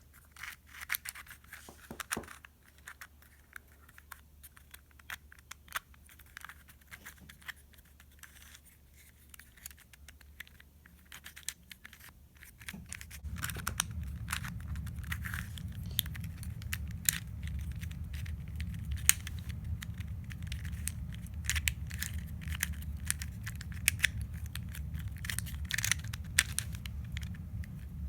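Small plastic clicks and scrapes of a 2x2 twisty-puzzle cube being turned and handled. About halfway through, a steady low rumble comes in underneath.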